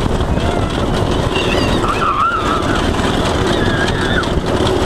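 Black Cat go-kart's small engine running steadily as the kart drives over a bumpy dirt and grass track, with a continuous rumble and rattle.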